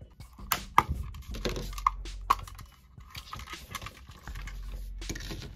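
Plastic clips of a JBL Charge 6 speaker housing clicking and snapping as a passive radiator is pried and pulled free. A few sharp clicks in the first couple of seconds, with rattling and handling noise of the parts between them.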